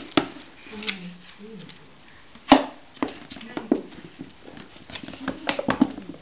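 Plastic water bottle knocked, pressed and crinkled against a wooden floor as a dog mouths it and a baby grabs at it: a string of uneven clicks and knocks, the sharpest about two and a half seconds in.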